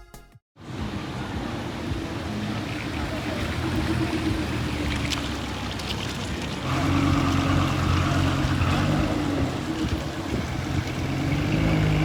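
A car engine idling steadily, getting louder about two-thirds of the way through.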